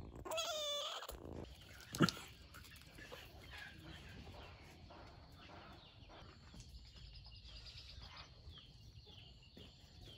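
A short animal call with a wavering pitch at the start, then a single sharp knock about two seconds in, with faint bird chirps behind.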